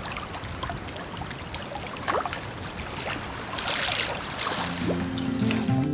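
Small waves lapping and splashing at the pond's edge, a soft irregular water sound. Acoustic guitar music comes in near the end.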